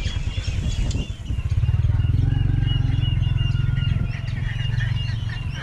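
A small engine running close by, a low pulsing hum that swells about a second and a half in and fades near the end, with birds chirping and twittering over it.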